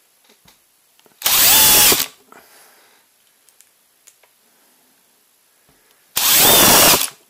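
DeWalt DCD996 cordless drill driver driving pan-head screws into wood in two short runs, each under a second, with a quiet pause between them. Each run cuts off abruptly as the screw head seats and the drill's electronic clutch stops the motor.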